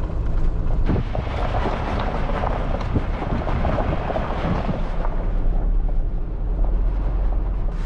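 Tow truck being driven, its engine and road noise making a steady low rumble with a few scattered knocks.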